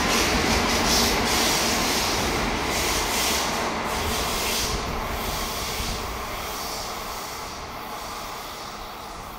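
Tokaido Shinkansen N700-series train passing through at high speed: a loud rush of wind and rail noise with repeated high-pitched swells, which fades away over the last few seconds as the train recedes.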